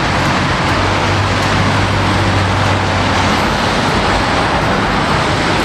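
A steady, loud wash of road-vehicle noise like passing traffic, with a low hum underneath; it cuts in and out abruptly like an added sound clip.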